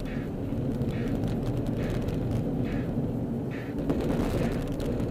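Car interior noise while driving: steady engine and road rumble. A turn-signal indicator ticks a little more than once a second, and a brief louder rush of road noise comes about four seconds in.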